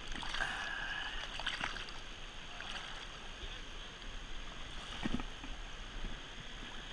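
Steady rush of river current, with a few short knocks and splashes.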